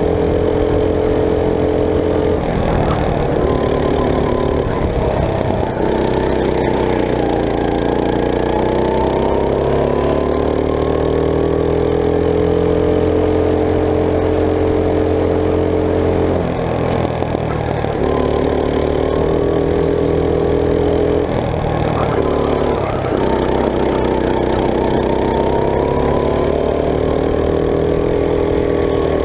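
Go-kart engine heard from on board, working hard through a lap: its pitch drops as the kart slows for corners and climbs again on the straights, several times over.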